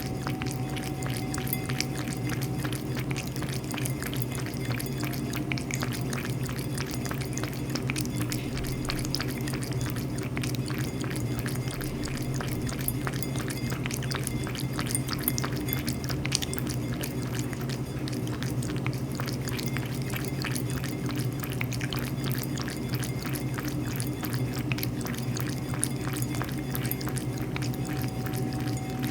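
Cat lapping water with its tongue: a continuous run of small, quick wet clicks over a steady low hum.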